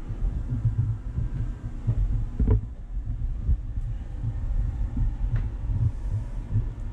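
Uneven low thudding and rumble of footsteps on wooden steps and a floor, with handling noise from a hand-held camera, and a couple of sharper knocks, the loudest about two and a half seconds in.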